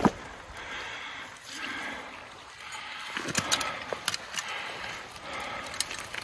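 Rustling that comes and goes, with a few sharp clicks and taps, as hands handle a landed king salmon and fishing line, over faint running water.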